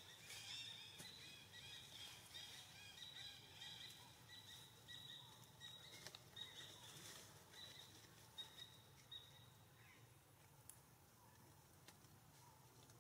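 Faint, high-pitched chirping calls repeated several times a second, fading out about nine seconds in, over a quiet outdoor background with a few soft clicks.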